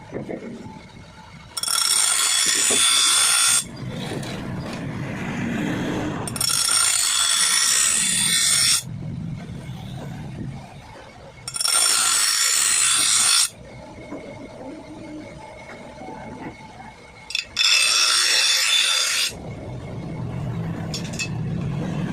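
A grass cutter blade being sharpened: four long scraping passes of metal on the edge, each cutting in and out abruptly with a ringing note, spaced a few seconds apart.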